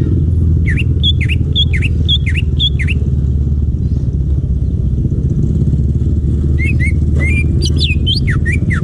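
Green leafbird (cucak ijo) calling: a run of about five quick down-slurred notes, then after a pause of about three seconds a busier, more varied burst of calls. A steady low rumble sits under it throughout and is the loudest sound.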